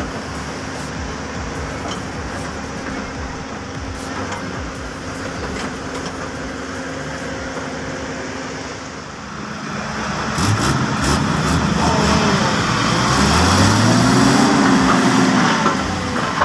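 Diesel dump truck engine running steadily, then revving up about ten seconds in, its pitch rising and falling, as the hoist raises the bed to tip out its load of earth.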